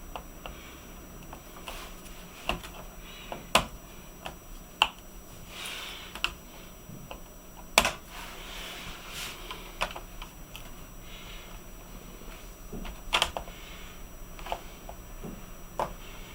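Scattered sharp plastic clicks and taps, with a few short scrapes, as a Toshiba Dynabook laptop is disassembled and an internal connector is unplugged. The loudest click comes about eight seconds in, and a quick group of clicks follows around thirteen seconds.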